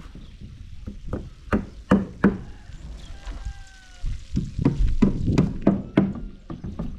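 A run of irregular sharp knocks and clatter, bunched about one and a half to two seconds in and again from about four to six and a half seconds in. A faint, short falling whistle-like tone sounds about three seconds in.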